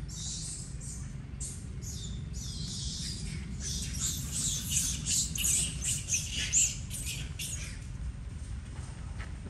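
A rapid, irregular series of short, high-pitched animal squeaks and squawks, densest and loudest from about four to seven seconds in, over a low steady rumble.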